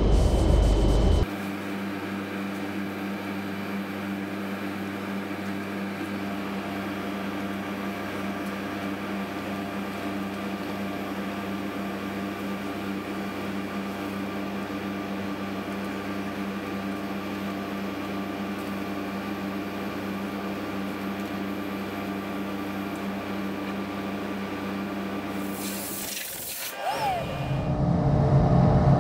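Steady machine hum made of several even tones. A louder rushing noise cuts off about a second in and returns near the end.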